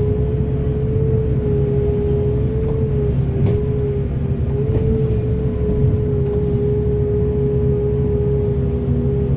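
Heavy excavator's diesel engine running steadily, with a constant high whine over a low drone.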